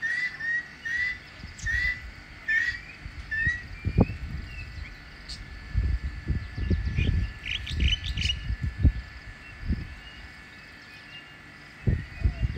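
A bird repeating a short chirp about twice a second for the first few seconds, then scattered higher chirps from other birds. Irregular low thuds and rumbles break in throughout, the loudest about four seconds in and again from six to nine seconds.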